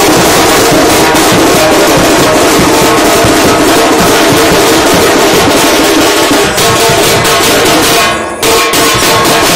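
Street drum band playing loud, fast, continuous drumming on large bass drums and a rope-tensioned side drum struck with sticks, with a brief break about eight seconds in.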